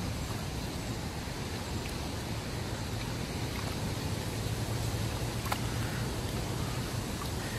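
Steady wind noise on the microphone over lake water lapping at the bank, with no distinct splash or knock.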